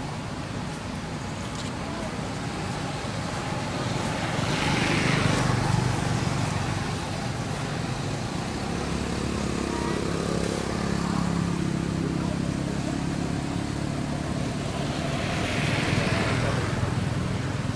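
Road traffic: a steady rumble, with vehicles passing about five seconds in and again near the end.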